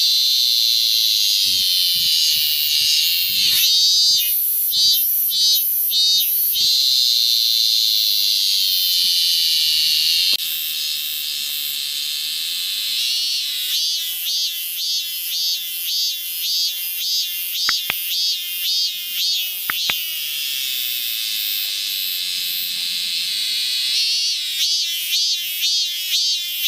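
Cicada calling: a loud, high-pitched buzz, held steady at first, then turning into a rhythmic pulsing from about halfway through.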